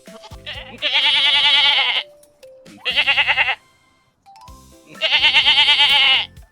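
Three loud, wavering bleats from a farm animal, the first and last about a second long and the middle one shorter, over background music.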